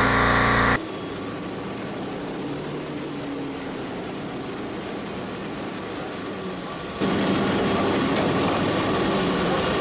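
A boat's engine running steadily. About a second in it drops suddenly to a quieter hum and hiss, and near seven seconds it jumps back to a louder, steady engine drone.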